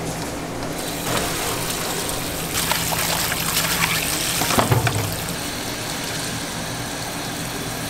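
Tap water running over an opened pen shell in gloved hands and splashing into a stainless steel sink as the shellfish is rinsed. The water starts about a second in, with a few knocks of shell near the middle.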